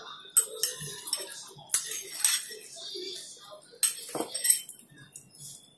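Metal spoon clinking and scraping against a small ceramic bowl while eating, a sharp clink every second or so.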